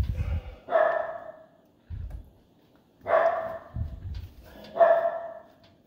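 A dog barking: three barks, each about half a second, spaced a second or two apart, with a few dull low thuds between them.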